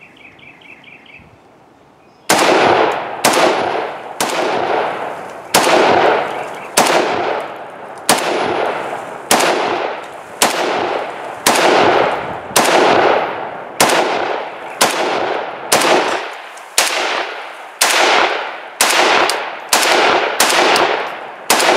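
Bulgarian Arsenal SAM7SF milled-receiver AK rifle in 7.62x39 firing semi-automatic. After about two seconds of quiet, some twenty single shots come at roughly one a second, each ringing out briefly.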